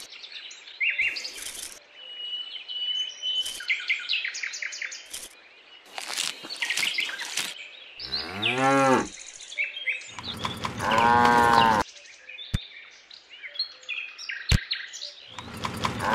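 Cows mooing, with a long moo about ten seconds in and a shorter falling call just before it, while small birds chirp in quick bursts in the first few seconds.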